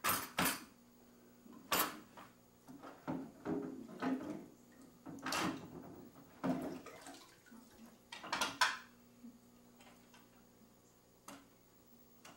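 Dishes and utensils clinking and knocking as they are handled and set into a wire dish drainer at a kitchen sink, in sharp, irregular clatters: a pair right at the start, then more around two, five, six and a half and eight and a half seconds in, and a last one near the end. A faint steady hum runs underneath.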